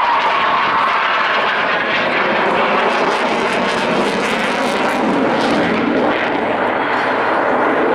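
Fixed-wing aircraft engine noise, loud and steady throughout.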